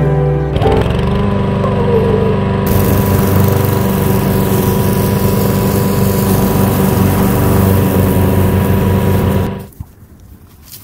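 Lawn mower engine running steadily close by. It starts abruptly about half a second in and cuts off suddenly near the end.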